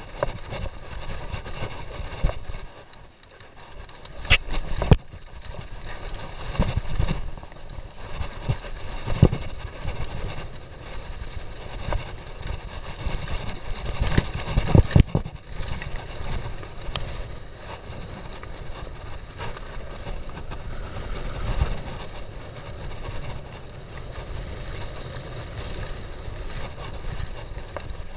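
Downhill mountain bike ridden fast over a rough trail of rocks and roots: tyres rumbling on dirt, with the frame and chain rattling and sharp knocks from hits on rocks, loudest about four seconds in and again near fifteen seconds.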